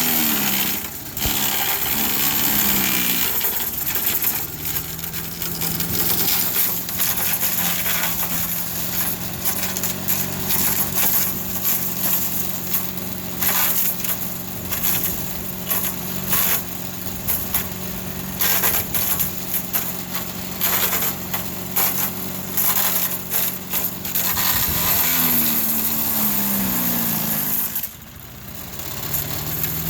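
Craftsman 4 hp wood chipper/shredder running and shredding wood, with a rapid, irregular crackle of wood being chewed up over the steady engine. The engine pitch sags a few times as it bogs under the load, most clearly near the start and about 25 seconds in.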